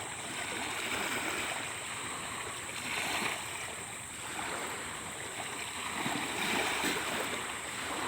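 Steady rush of water at the shore, swelling and easing every few seconds.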